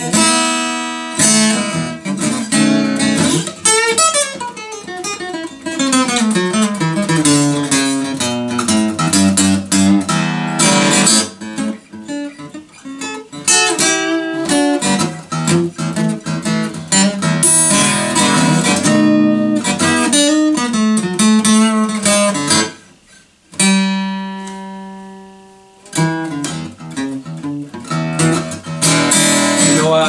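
Acoustic guitar playing an instrumental break with no singing: quick picked note runs mixed with strummed chords. About two-thirds of the way through, the playing stops for a moment, then one chord rings out and fades for a couple of seconds before the runs start again.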